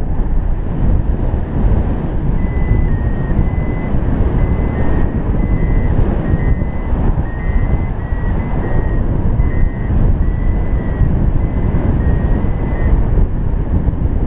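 Arduvario ESP32 variometer beeping about twice a second, short high beeps that shift slightly in pitch, starting about two seconds in and stopping near the end: its climb tone, which signals that the paraglider is rising (beep threshold set at +0.15 m/s). Steady, louder wind rushes over the microphone throughout.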